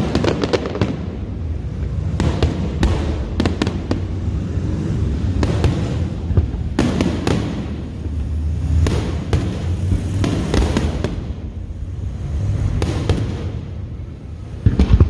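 Fireworks display: aerial shells bursting one after another, a dozen or so sharp bangs with crackling, over a steady low rumble.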